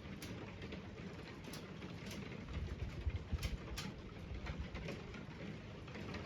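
Rain and hail on an old uninsulated slate roof heard from inside the cottage: a steady patter with scattered sharp ticks of individual stones and drops. A low rumble swells about two and a half seconds in and fades a second or so later.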